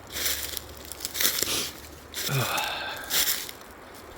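Footsteps crunching through dry leaves and brush, about one step a second. A little past two seconds in, a short voice-like sound glides down in pitch.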